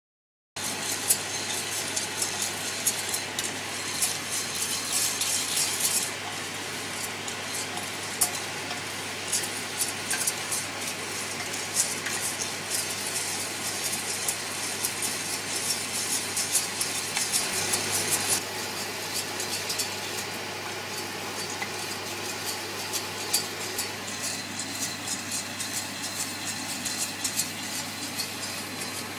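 Coffee beans rattling and clicking as they are stirred in a pan, the rattle coming in spells, over a steady low hum.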